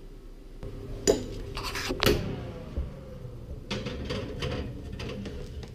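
A pie dish being slid onto a metal oven shelf: two sharp knocks, then a run of clinks and scraping clatter of dish on rack, over a faint steady hum.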